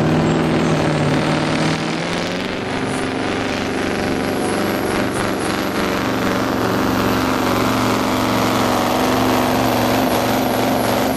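Diesel engine of an Iveco-cabbed pulling truck running flat out under heavy load as it drags a weight sled. A high whistle rises over the first two or three seconds and then holds steady above the engine.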